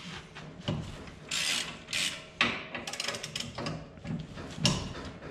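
Hand ratchet wrench clicking in short, irregular bursts, with light clinks of metal tools, as a dirt late model's rear end is being unbolted from underneath.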